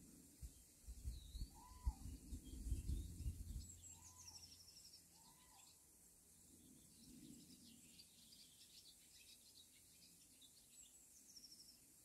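Faint songbirds calling: a short arched call repeated three times and a high, quickly descending trill heard twice, once near the middle and again near the end. Low rumbling buffets, the loudest sound, come in the first few seconds and then die away.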